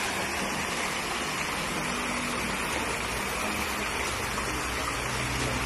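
Tiered stone fountain splashing steadily: water pouring from its bowls and a ring of thin jets falling into the basin.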